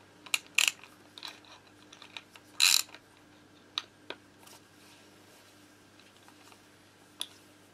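Metal tools and small engine parts clinking as they are handled on a workbench: a cluster of sharp clinks in the first three seconds, the loudest a short rattle about two and a half seconds in, then a few sparse clicks. A faint steady hum lies underneath.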